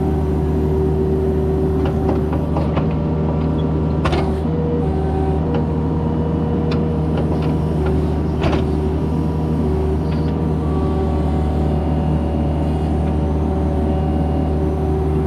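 Kubota compact excavator's diesel engine running steadily, with a low hum and a steady whine, and a few sharp knocks, the loudest about four seconds in and again about eight and a half seconds in.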